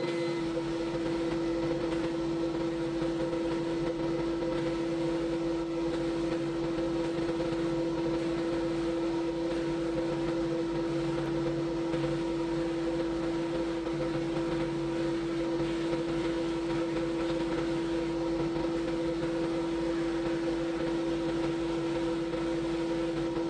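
Electric power tool motor running steadily: a constant hum with a hiss over it, unbroken throughout.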